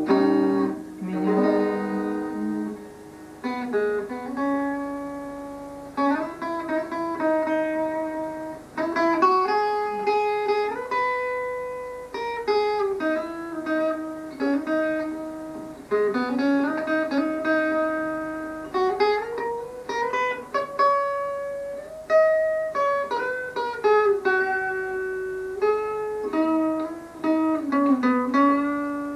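Nylon-string classical guitar played fingerstyle: an instrumental melody of plucked single notes that step up and down over lower bass notes, each note ringing on briefly before the next.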